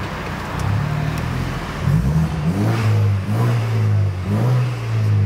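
BMW 320i's turbocharged four-cylinder engine accelerating, heard from inside the cabin, its note rising and dropping in pitch several times as the revs climb and fall.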